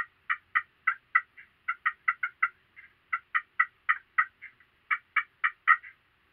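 A long run of short, sharp turkey calls, about four notes a second with a few brief breaks, starting abruptly and stopping near the end.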